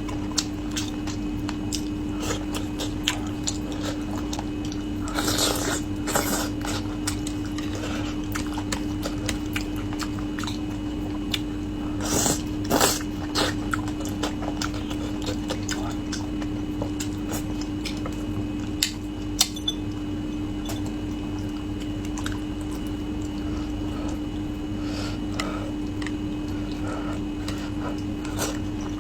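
Close-miked eating of spicy braised carp: chewing and biting with wet mouth sounds and scattered sharp clicks. Denser bursts come about five seconds in and again around twelve to thirteen seconds, over a steady low hum.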